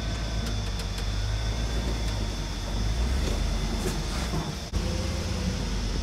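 Engine of a black HSV Hummer H3 four-wheel drive running at low revs, a steady low rumble, with a brief dip in level a little before the end.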